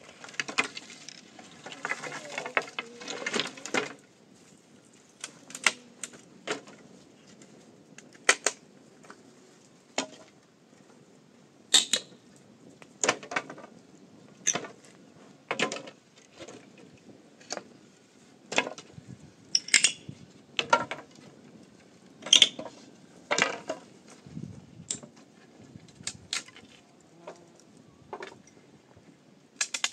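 Irregular sharp knocks and clinks of hard objects being struck or set down: a busy cluster at first, then single knocks about every second or so, some ringing briefly.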